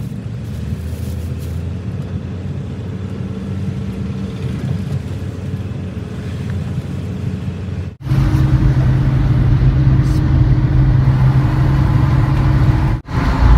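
Car engine and road noise heard from inside the cabin while driving: a steady low hum that gets louder and heavier about eight seconds in, briefly dropping out twice.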